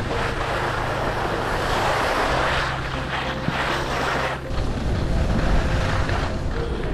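Skis hissing and scraping over packed, groomed snow as they carve downhill, with wind rumbling on the microphone. The scraping fades about four and a half seconds in, leaving mostly the low wind rumble.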